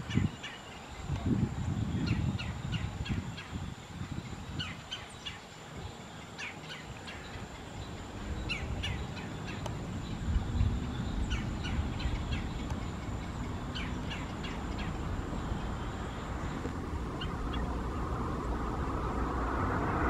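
Songbirds chirping: short high notes in quick clusters every second or so, over a low rumble. Near the end a rising rush of noise builds.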